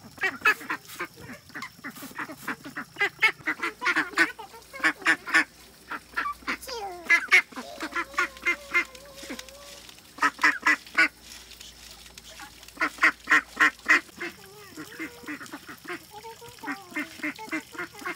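White domestic ducks quacking in quick runs of short calls, several runs one after another.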